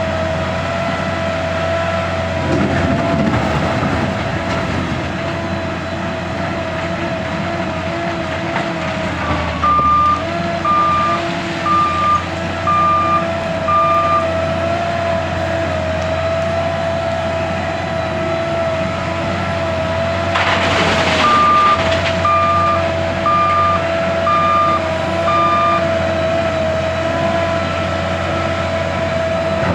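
L&T 9020 wheel loader's diesel engine running under load with a steady whine, its reversing alarm beeping about once a second in two runs, a third and two-thirds of the way in. A short loud rushing noise comes just before the second run of beeps.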